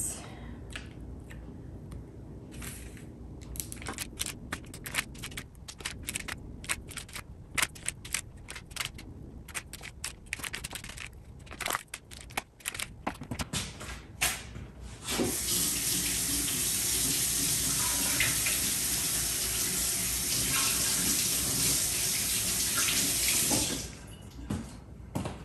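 A knife cutting a block of cream cheese into cubes, tapping on the cutting board many times in quick, uneven runs. About halfway through, a kitchen faucet runs steadily for about eight seconds, the loudest sound here, then shuts off.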